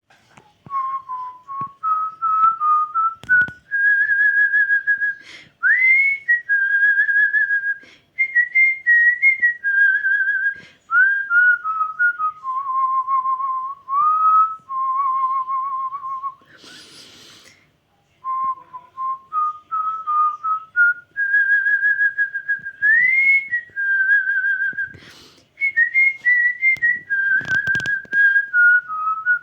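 Artistic whistling: a person whistles a melody by mouth, a single clear tone with vibrato on the held notes and quick slides up into some of them. The tune is whistled through twice, with a short pause and a brief breathy noise about halfway.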